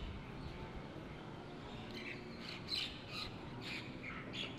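Birds chirping outdoors: a run of short high calls, about two a second, starting about two seconds in, over faint background noise.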